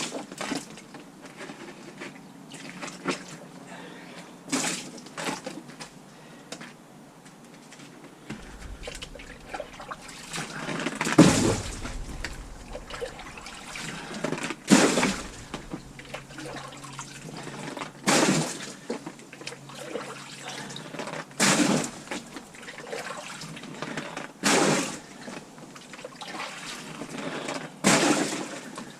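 Water being bailed from a rain-flooded hole with a bucket: a run of splashes and sloshes about every three seconds, strongest from a little before halfway on.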